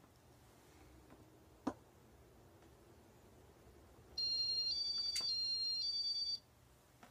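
A high electronic two-note warble, stepping between two pitches about every half second, starts about four seconds in and lasts about two seconds; it is the loudest sound. Under it runs the faint steady hum of a Casablanca Venus ceiling fan, with a single click a second and a half in.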